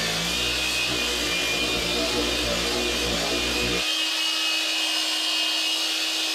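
Long power sander running steadily against cured fairing compound on a fiberglass boat transom. Its low rumble drops away about four seconds in, leaving a steady whine.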